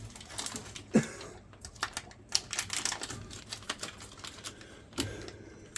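Irregular light clicks and taps of hands handling the plastic condensate drain parts of a furnace, one sharper knock about a second in.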